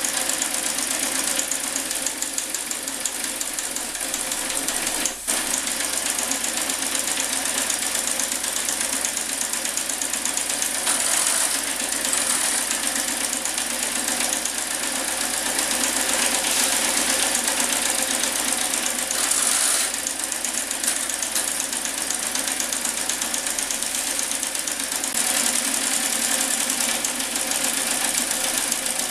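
Small engine of a Marion 91 steam shovel model running at a fast, steady beat with a hiss, driving the shovel through its digging cycle; the beat stays even apart from a brief dip about five seconds in.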